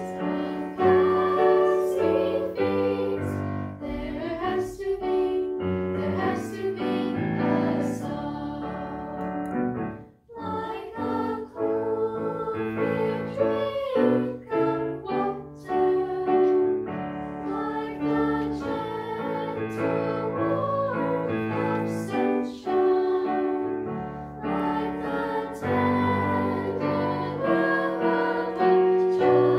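A treble ensemble of six young girls singing in harmony, accompanied on an electronic keyboard playing piano, with a short break about ten seconds in.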